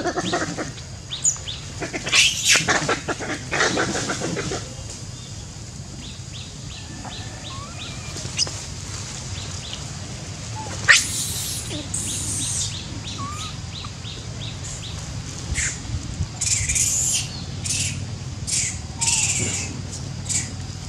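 Long-tailed macaques squealing and screeching in short high-pitched calls, with birds chirping. There is a burst of screeching about two seconds in, a sharp rising squeal around the middle, and a run of short squeals near the end.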